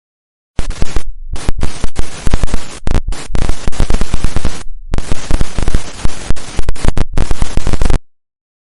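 TV glitch sound effect: loud bursts of static hiss that cut in and out abruptly, with short dead gaps between them, stopping suddenly near the end.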